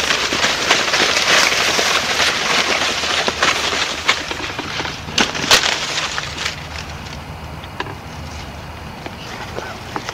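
Dry corn stalks and leaves rustling and crackling as someone moves through them low to the ground, with a couple of sharp snaps about five seconds in. The rustling eases off over the last few seconds.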